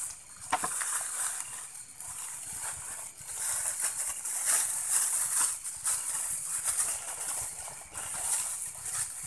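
Dense high-pitched chorus of night insects, swelling and fading in pulses, with a faint knock about half a second in.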